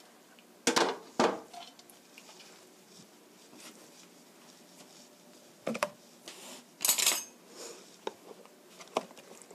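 Scattered clinks and knocks of kitchen items being handled and set down: two sharp ones about a second in, then a cluster from about six seconds in with a brief rattle, and one more knock near the end.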